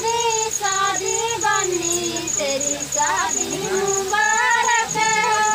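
Women singing a chadhav wedding folk song without clear drumming, the melody moving in long held and gliding notes.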